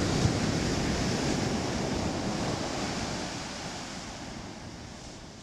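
Ocean surf breaking and washing up a sandy beach, a steady rushing of water that fades out gradually over the last few seconds.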